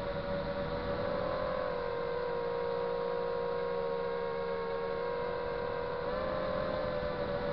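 FPV quadcopter's brushless motors whining steadily, heard through the onboard camera. The pitch dips slightly about two seconds in and climbs back near the end as the throttle changes.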